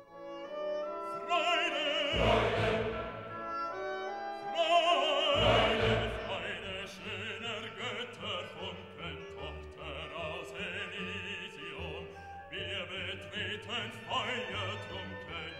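Background music: an operatic singing voice with vibrato over an orchestra, swelling strongly twice in the first six seconds.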